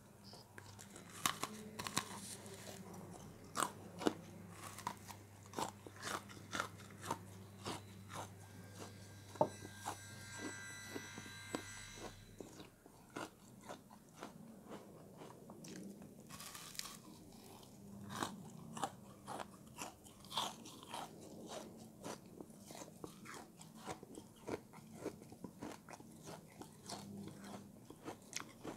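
Crunchy frozen food being bitten and chewed close to the microphone: irregular sharp crunches, several a second, with no pause.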